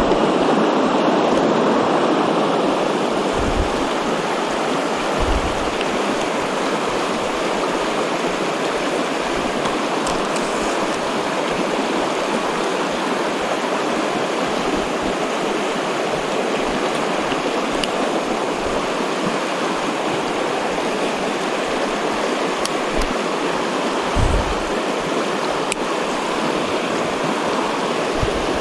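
Ptarmigan Creek rushing: a steady, loud wash of flowing water, with a few brief low thumps.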